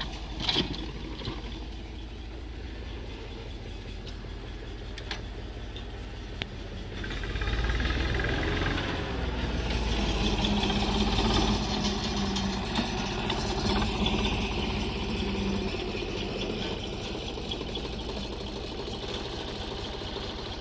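Volvo BM 350 Boxer tractor engine running steadily as it pulls a plough, growing louder about seven seconds in as it passes close by, then easing off again.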